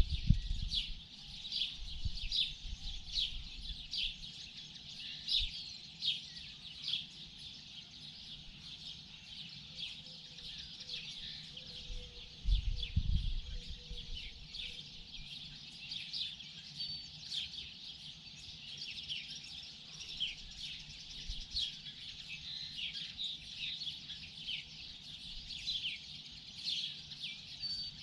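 Morning bird chorus: many birds chirping with rapid, short, high calls that overlap throughout. A low rumble comes and goes, loudest briefly about halfway through.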